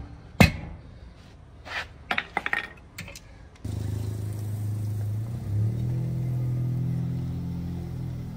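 Steel hand tools clanking on a semi-trailer wheel and the concrete: one sharp clank right at the start, then a few lighter clicks and rattles. From about three and a half seconds in, steady background music with a low bass line takes over.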